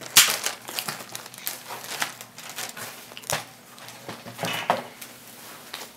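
Crinkling and rustling of plastic snack packaging being handled, with scattered sharp crackles and knocks.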